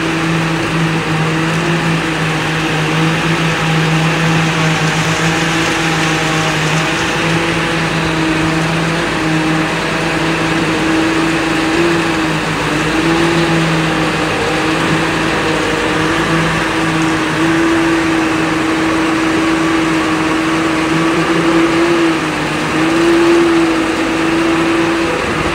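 Truck-mounted concrete conveyor running steadily while it feeds concrete down its chute: a loud, even engine and machinery hum whose pitch wavers slightly, over a rushing noise.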